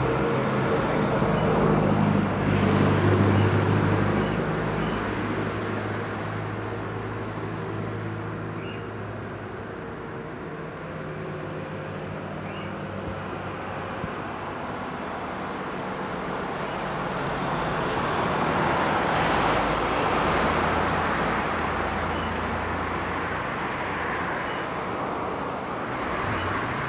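Boeing 767-300ER's jet engines at taxi power, a steady distant rumble and hum, mixed with road traffic that swells past about three seconds in and again around nineteen seconds.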